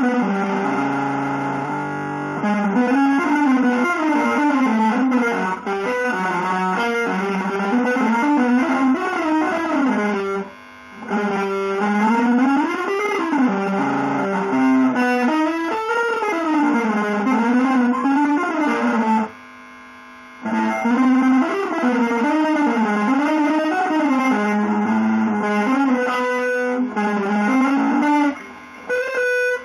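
Electric guitar through effects with some distortion, playing a fast single-note melodic line full of pitch glides. It breaks off briefly a few times.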